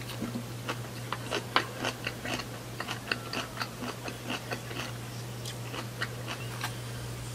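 Close-up crunchy chewing of spicy-sour shredded raw vegetables: many quick, irregular crisp crunches, several a second, easing off near the end.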